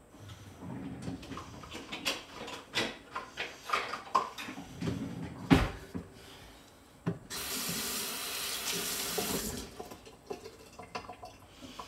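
A run of knocks and clatter, with one loud knock about halfway, then a kitchen tap running into a sink for about two and a half seconds before it is turned off, followed by a few light clicks.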